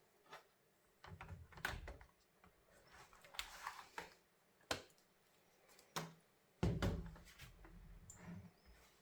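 Irregular clicks and knocks of plastic and metal laptop parts being handled, with two heavier thumps, one about a second in and one near the end.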